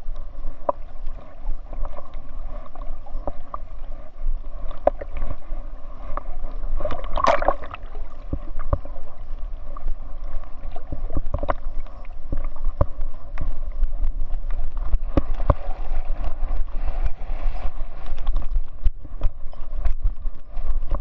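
Water sloshing and splashing around a swimming chocolate Labrador, heard muffled through the waterproof GoPro housing strapped to its back, over a steady low rumble with frequent knocks of the case. One louder burst comes about seven seconds in.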